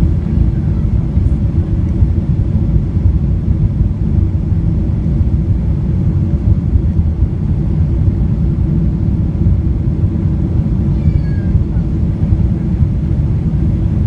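Steady low rumble of a Boeing 777-200ER heard inside the passenger cabin during landing: engine and airflow noise. A faint high falling sound comes through about eleven seconds in.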